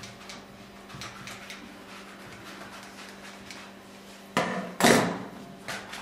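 Kitchen scissors snipping through a thin lavash flatbread, faint crisp cuts, followed by two loud knocks about four and a half seconds in.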